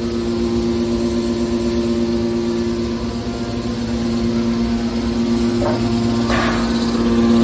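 Hydraulic scrap-metal baler running: a steady hum from its motor and pump. Two short harsh sounds break in about five and a half and six seconds in, the second louder.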